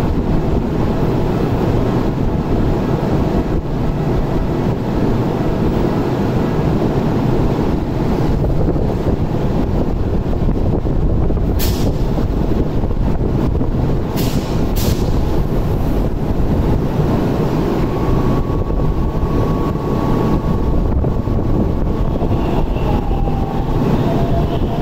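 Tokyu 300 series tram standing at a platform, its on-board equipment running with a steady low hum and rumble. Three short high hisses come near the middle.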